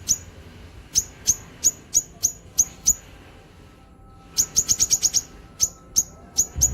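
Cucak kinoi songbird calling in sharp, high chirps, about three a second, then after a short pause a fast rapid-fire run of chirps, then spaced chirps again.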